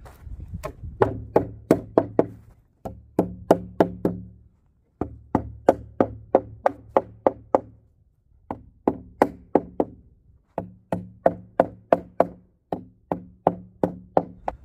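Hammer blows on the wooden planks of a raised-bed frame, as in driving nails: five runs of quick, evenly spaced strikes, about three or four a second, with short pauses between runs.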